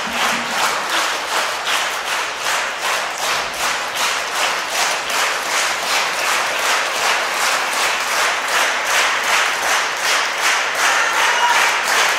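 Concert audience applauding, clapping together in time at a steady beat of about two to three claps a second.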